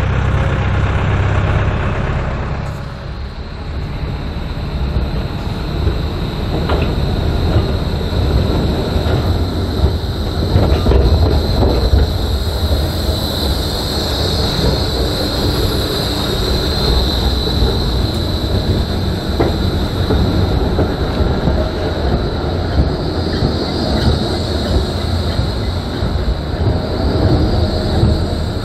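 Bombardier Flexity E2 tram moving slowly under its own power, its wheels rumbling over the rails with occasional clicks and a high steady whine from about halfway through. A tractor engine hums for the first couple of seconds.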